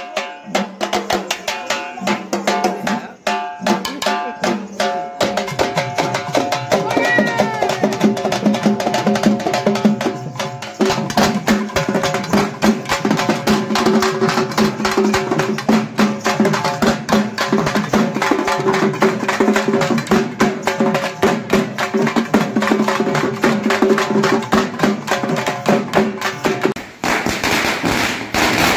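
A thappu (parai) frame-drum troupe beating a fast, dense rhythm, with steady held pitches sounding over the drums. Near the end the drumming gives way to a string of firecrackers crackling.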